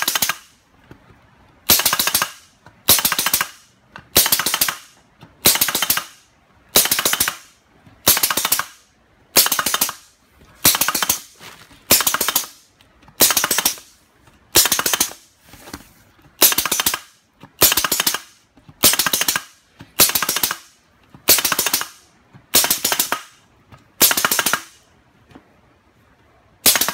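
Kenzan shiitake spawn inoculation gun, converted to an electric trigger that fires two shots per press, shooting spawn into a hardwood log. Sharp mechanical bursts come about every 1.3 seconds, some eighteen in a row, and stop shortly before the end.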